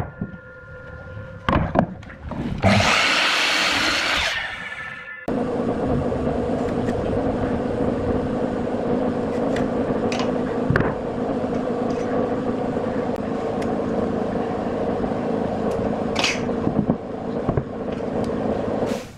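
A miter saw cuts through pine, a loud noisy burst lasting about two seconds that starts near the third second. It is followed by a steady machine hum for the rest of the time, with a few light taps and clicks.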